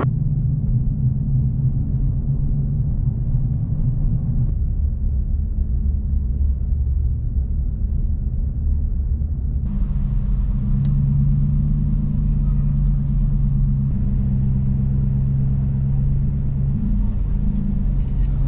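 A road vehicle driving: a steady low drone of engine and road noise with a constant hum, whose character changes abruptly about ten seconds in, when more hiss appears.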